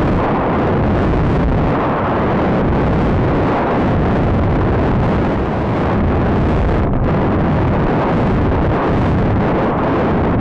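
Steady, loud wind rushing over the microphone of a rocket's onboard camera as the rocket descends after a high-power flight.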